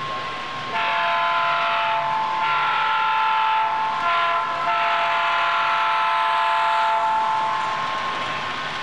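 Model locomotive's sound-decoder air horn, a multi-note chord from a small speaker, blown in a few blasts with a short one in the middle, for about seven seconds.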